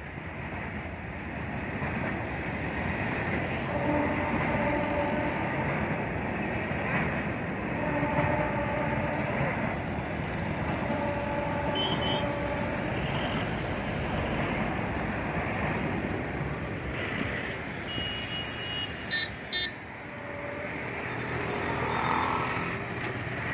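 Empty goods wagons of a freight train rolling past: a steady rattling rumble of wheels on the track, with a brief low tone repeating every few seconds. Near the end two short, loud, high beeps come close together.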